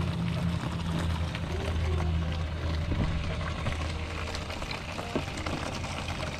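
A husky lapping water from a plastic tub while a thin stream of water trickles into it, with a low steady hum underneath that fades about halfway through.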